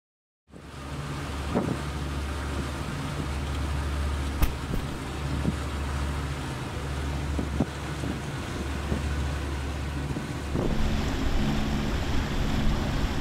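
Steady low drone of a sailboat's engine under way, with an even hiss of wind and water over it; the hiss grows louder a little before the end.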